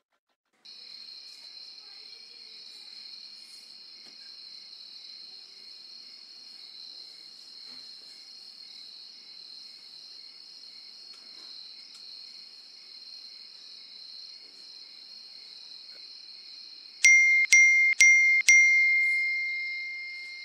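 Steady chirring of crickets starting about a second in. Near the end, four sharp electronic chimes from a mobile phone, about half a second apart, the last ringing on and fading out: a run of message alerts.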